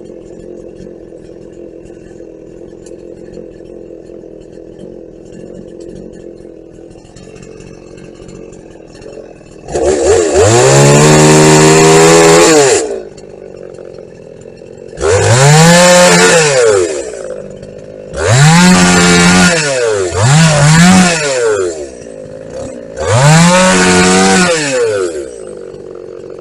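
Vintage Husqvarna two-stroke chainsaw idling, then opened up to full throttle five times, each burst rising and falling in pitch before it drops back to idle.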